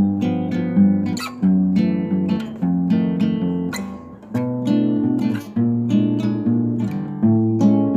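Background music: acoustic guitar picking and strumming chords in a steady rhythm.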